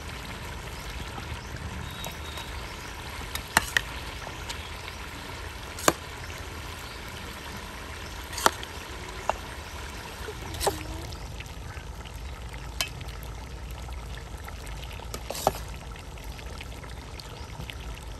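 Cooking at a pot over a mud stove: a steady hiss with sharp metallic clinks, like a utensil knocking the pot, every second or few seconds.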